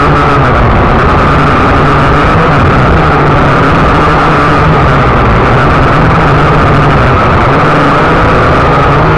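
Syma X8C quadcopter's motors and propellers running steadily, a constant loud whine heard close up through the drone's onboard camera.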